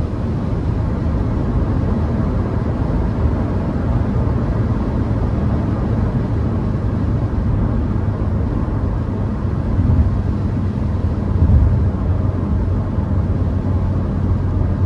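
Steady in-cabin engine and road noise from a Hyundai HB20 1.6 automatic cruising on a highway: a low, even hum under a wash of tyre and wind noise.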